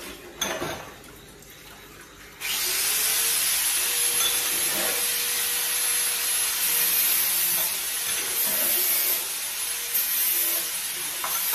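A dish clinks once about half a second in; then, a couple of seconds in, the kitchen tap comes on and water runs steadily from the faucet onto dishes in a stainless steel sink, with a few light clinks as they are rinsed.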